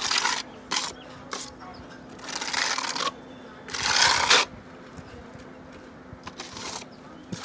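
Steel trowel scraping across a wet texture coating on a rendered wall, in a series of strokes: short ones early, two longer ones of under a second each about two and four seconds in, and a short one near the end.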